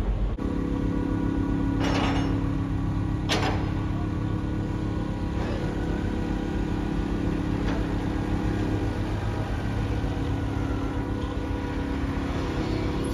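Diesel forklift engine running steadily as it moves cargo containers on the quay, with two sharp metal clanks about two and three and a half seconds in and a lighter one near eight seconds.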